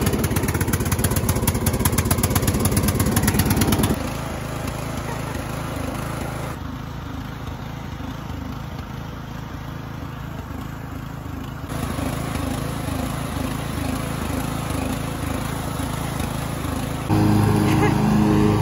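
A riding lawn mower's small engine running steadily, having just caught after refusing to start. About four seconds in it gives way to a quieter, more distant engine sound, which grows louder again near the end.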